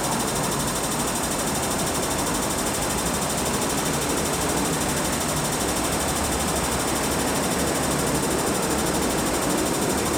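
Steady rumble and clatter of an MTR train running out of an underground station into its tunnel, echoing off the platform, with no rise or fall in level.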